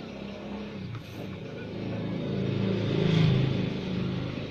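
A motor vehicle's engine passing by, growing louder to a peak about three seconds in and then easing off.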